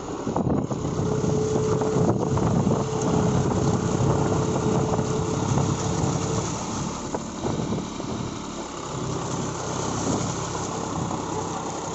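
John Deere 5042 tractor's diesel engine running steadily under load as its cage wheels churn through flooded mud and water, with a thin steady whine for the first half.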